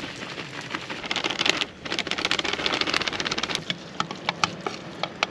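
Plastic bag of shredded cheese crinkling and rustling as cheese is shaken out over a tortilla on a paper plate, with a short break partway through. Near the end come a few sharp clicks as a spatula scoops beef from a bowl.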